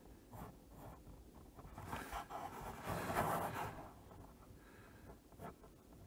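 Graphite pencil (a 2 mm HB lead in a Caran d'Ache Fixpencil lead holder) sketching on sketchbook paper: a run of faint, scratchy strokes, loudest in the middle.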